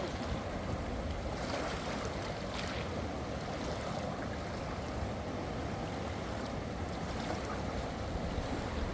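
Strong wind blowing, with waves washing: a steady rushing noise with a low rumble of wind on the microphone.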